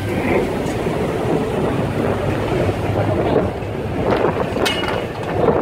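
Crew boat's engine running steadily under wind buffeting the microphone, with a couple of sharp clicks about four and a half seconds in.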